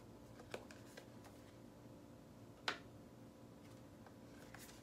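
Near silence with a few faint clicks and light rustles of paper sheets being handled, the sharpest click a little past halfway.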